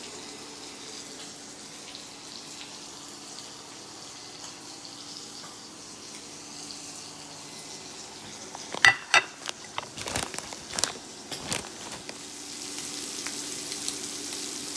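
Coconut-coated shrimp frying in avocado oil in a pan, a soft steady sizzle. From about nine seconds in comes a run of sharp clicks and knocks lasting about three seconds, after which the sizzle grows louder.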